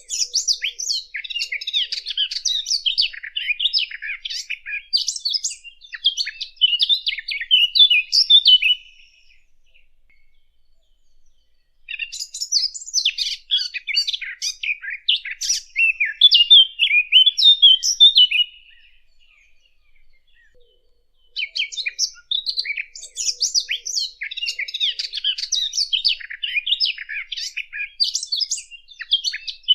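Sylvia warbler, the 'fig bird', singing a fast, rambling warble in three long bouts: the first stops about nine seconds in, the second runs for about six seconds, and the third starts a few seconds later and continues to the end.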